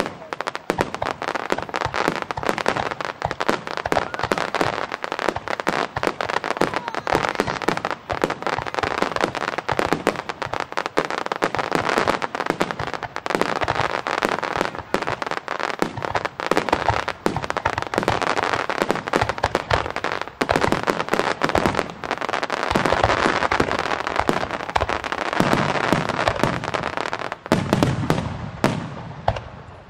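Fireworks display in a dense barrage: aerial shells bursting in rapid, overlapping pops and bangs with no break, with deeper bangs in the last few seconds.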